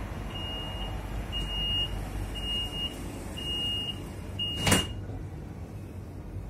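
Stadler double-decker ЭШ2 electric train's door-closing warning: a high beep about once a second, five times, then a sharp thud as the doors shut during the last beep, over the train's low steady rumble.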